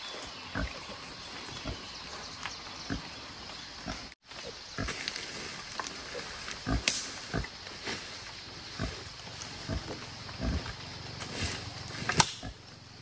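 Wild boar sow grunting now and then at her piglets' nest, with dry branches and leaf litter crackling and rustling as brush is handled; the sound breaks off briefly about four seconds in.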